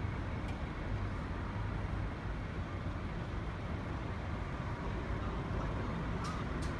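Diesel engines of city buses running at a bus stop, one bus creeping forward: a steady low rumble. Two brief sharp sounds come near the end.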